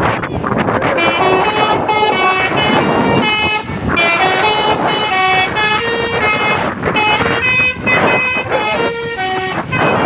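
Basuri 'telolet' musical air horn playing a fast tune of short stepped notes, repeated without a break, over vehicle and traffic noise.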